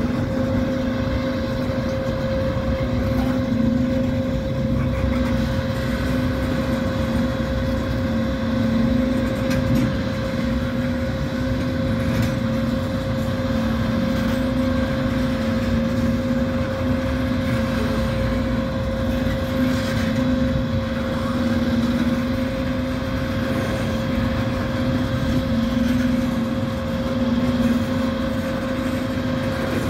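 Freight train of tank cars rolling steadily past a grade crossing: continuous rumble of the wheels on the rails, with a steady tone held underneath.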